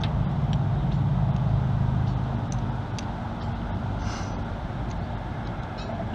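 A low, steady motor rumble that weakens after about two and a half seconds, with a few light metal clicks and a brief rustle as rocker arms are worked off a Chevy 3.1L V6 cylinder head.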